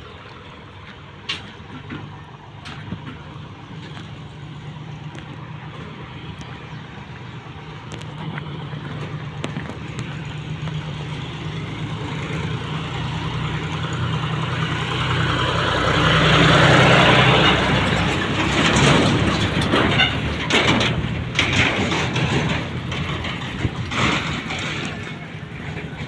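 Diesel tractor engine running steadily, getting louder as it draws near and passing close by about two-thirds of the way through. It is hauling loaded sugarcane trailers, and a run of knocks and rattles follows as they roll past.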